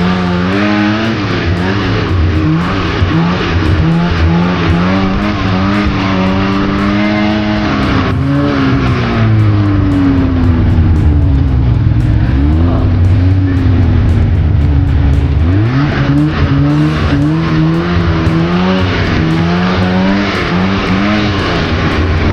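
Polaris RMK 700 snowmobile's two-stroke engine running under throttle, its pitch rising and falling as the throttle is worked, dropping around the middle and climbing again about two-thirds of the way through.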